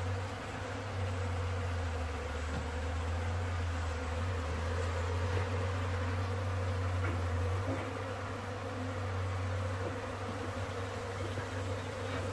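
Honeybees buzzing as a swarm around their nest while the comb is pulled out, over a steady low hum.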